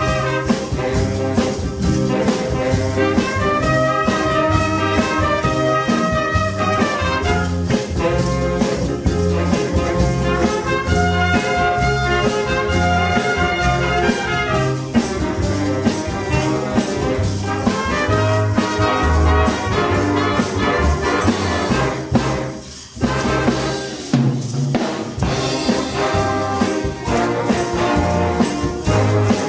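Jazz big band playing a rumba live: saxophones and brass over piano, guitar and drum kit, with a steady bass pulse and a brief break about three quarters of the way through before the band comes back in.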